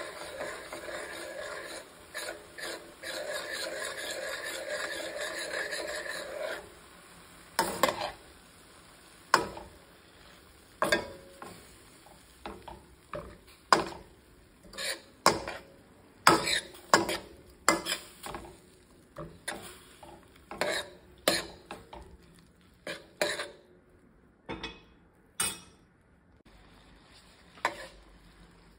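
A metal spoon stirring vegetables and sauce in a stainless-steel pan: a steady sizzle for about the first six seconds, then repeated clicks and scrapes of the spoon against the pan.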